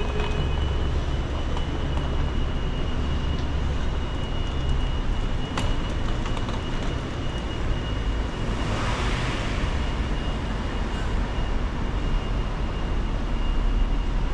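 Steady low vehicle rumble with a faint, constant high whine; a single click about five and a half seconds in, and a rushing sound that swells and fades around nine seconds in.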